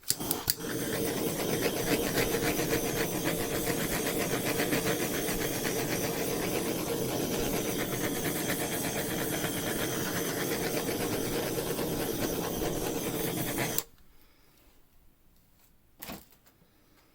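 Handheld heat gun running steadily, its fan blowing hot air over wet acrylic pour paint, then switched off abruptly about fourteen seconds in; a single short click follows a couple of seconds later.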